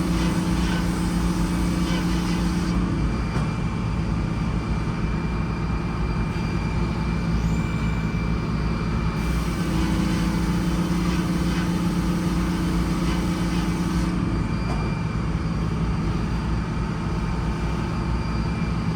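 Sawmill running steadily with a constant engine drone. A stronger pitched hum and a high hiss join in twice: for about three seconds at the start, and again for about five seconds in the middle.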